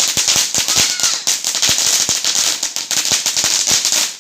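Small firework going off: dense, irregular rapid crackling over a steady high hiss.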